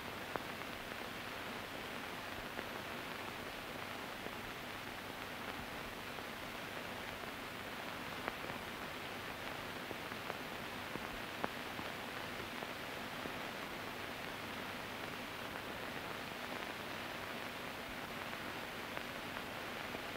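Steady hiss of an old film soundtrack, with a few faint, scattered clicks.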